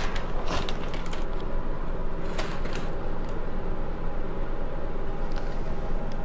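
Steady low background rumble, with a few light crackles of the clear plastic cover film on a diamond painting canvas as it is touched and handled.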